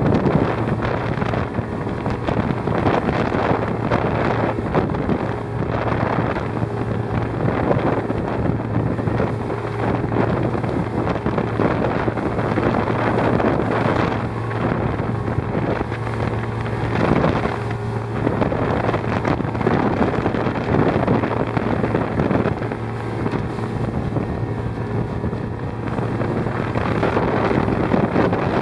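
Motorboat underway at speed: a steady low engine drone beneath rushing water and heavy wind buffeting on the microphone, swelling and easing irregularly.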